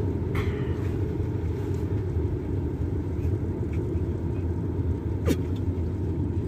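Steady low rumble of a car's engine and road noise heard inside the cabin, with one sharp click about five seconds in.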